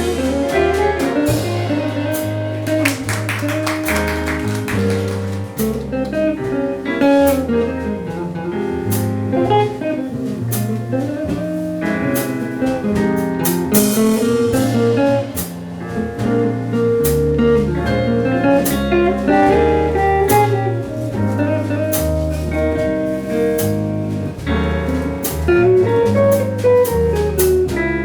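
Live jazz band playing an instrumental break: a guitar solo of single-note lines over a walking bass, piano chords and drums with ride-cymbal strokes.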